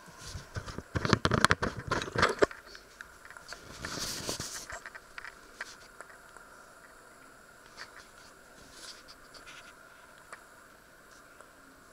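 Camera handling noise as the camera is picked up and moved: a cluster of knocks and scrapes lasting about two seconds, a brief rustle a little later, then faint occasional ticks.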